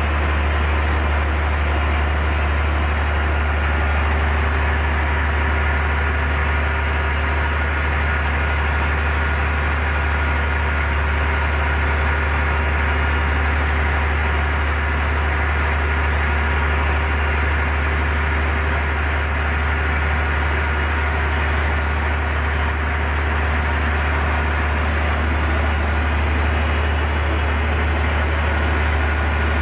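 Heavy diesel engine running steadily at one constant speed, a low, even drone with no revving or changes in load.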